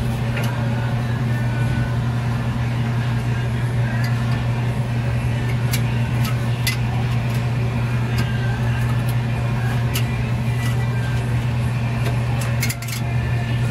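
A steady, loud, low machine drone, with scattered light clicks and ticks of a wire and sensor lead being worked along the aluminium fins of a refrigeration evaporator coil.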